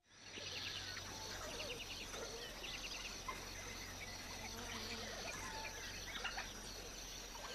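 Dawn chorus in the African bush: many birds chirping and calling over a steady high-pitched insect drone.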